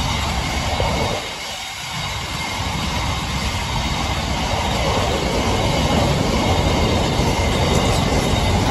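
A train passing close by on the line through the level crossing: a steady rumble of wheels on the rails. The rumble dips briefly about a second in, then builds again and stays loud.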